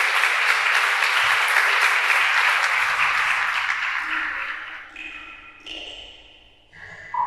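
Audience applauding, a dense clatter of clapping that fades out about four seconds in. Near the end a few soft, steady ping-like tones begin from the film's soundtrack.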